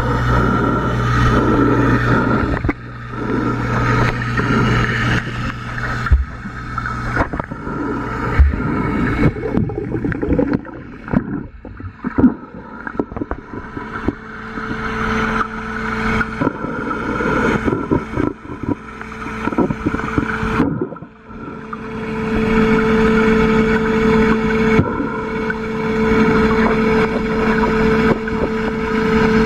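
Steady motor hum picked up underwater, over a rushing water-noise haze, with scattered knocks and scrapes through the middle.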